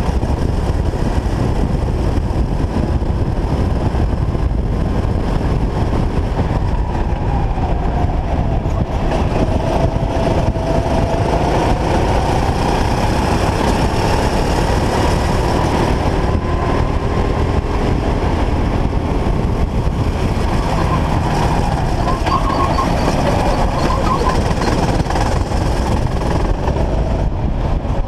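Kart engine running at speed through a lap, its faint whine rising and falling with the throttle, under a heavy, steady rumble of wind buffeting the helmet-mounted GoPro.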